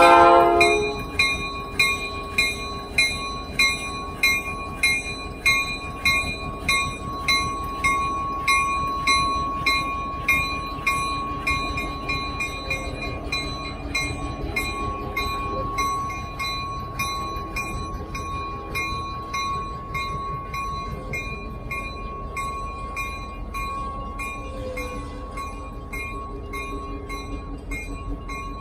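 Reading & Northern 425, a 4-6-2 steam locomotive, pulling out. Its exhaust chuffs come slow and even at first, then quicken and fade as it gets under way.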